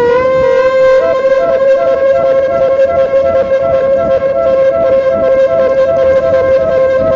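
Music: a wind instrument holding one long note, flicking briefly up to a slightly higher note now and then.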